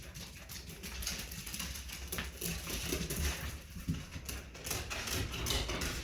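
Corgis moving around on a hard floor, their claws and paws making irregular clicks and pattering.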